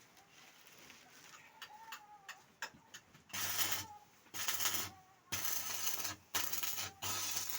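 Electric arc welding on a chaff cutter machine: four short bursts of crackling arc about halfway through, each a second or less, with a low buzz under them.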